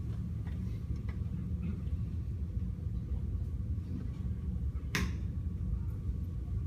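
Low, steady room rumble and hum in a quiet audience hall, with a single sharp click about five seconds in.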